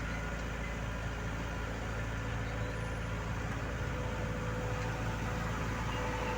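Diesel engine of heavy construction machinery running steadily with an even low hum.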